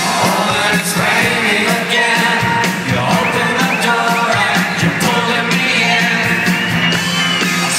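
Live band playing an electronic rock song, with singing over drums, electric guitars and keyboards. It is loud and steady, as heard from within the audience in a concert hall.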